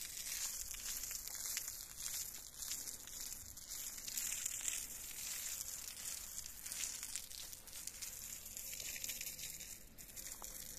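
Water from a garden hose spraying and splattering onto a freshly poured concrete foundation wall to wet it for curing: a steady crackling hiss that grows fainter near the end.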